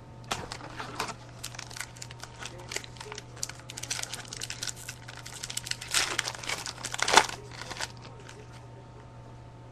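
Wrapper of a trading card pack crinkling in quick crackles as it is handled and torn open, loudest about six and seven seconds in, stopping about eight seconds in.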